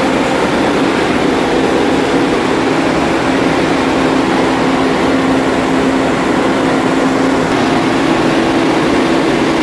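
A ship's emergency diesel generator set running steadily during its weekly test run. The engine gives a loud, unchanging drone with a constant hum.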